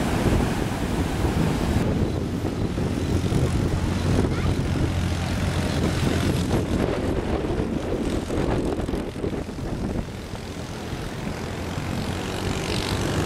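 Heavy storm surf breaking, with a steady low engine drone over it from about two seconds in that fades about ten seconds in.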